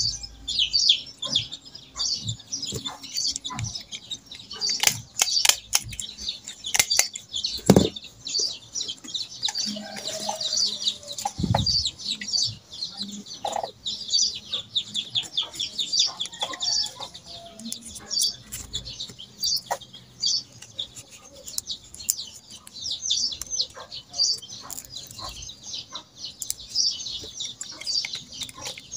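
Birds chirping in quick, constant high twitters, with the crackle and rustle of banana leaf and ribbon being folded by hand and a few sharper knocks.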